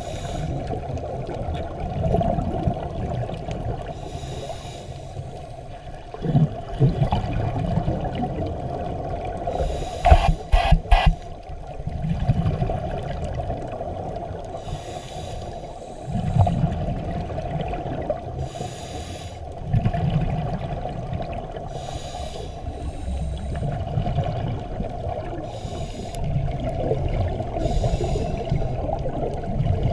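Scuba diver breathing through a regulator underwater: a short hiss of inhalation every three to four seconds, with the low rumble of exhaled bubbles between. A quick cluster of sharp clicks comes about ten seconds in.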